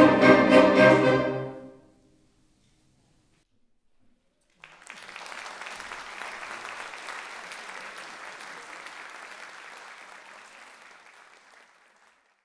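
A concert band of woodwinds and brass plays a pulsing final chord that dies away within about two seconds. After a silence of nearly three seconds the audience breaks into applause, which fades out near the end.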